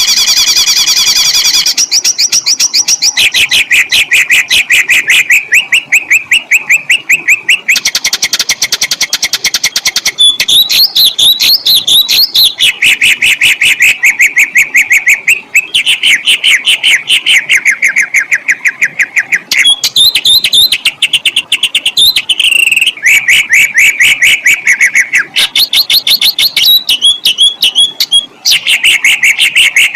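Songbird song made of fast runs of rapidly repeated sharp, harsh notes ('tembakan') in rolling trills, with the phrase changing every two to three seconds.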